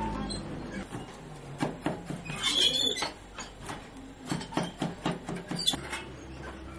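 Wooden treadle handloom being worked: a run of irregular wooden knocks and clacks from the treadles and frame, with a short squeak about two and a half seconds in.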